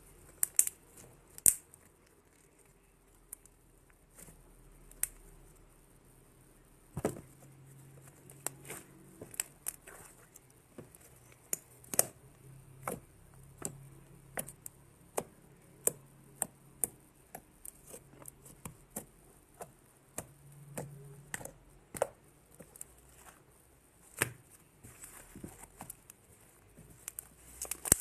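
Fluffy slime made of glue, borax and shaving foam being squished and handled, giving irregular sharp wet clicks and pops, about one a second.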